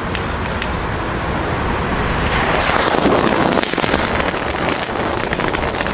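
Small ground fountain firework catching about two seconds in and spraying sparks with a loud, steady hiss, after a few sharp clicks near the start.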